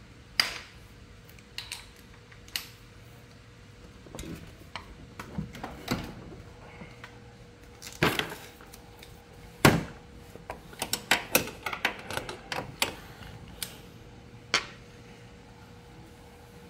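Metal hand tools and parts clinking and knocking in scattered sharp clicks, with a quicker run of clicks a little past the middle, during work on a scooter's exhaust.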